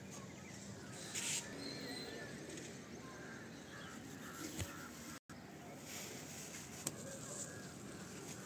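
Faint bird calls over a steady outdoor background, with brief rustles about a second in and again about seven seconds in.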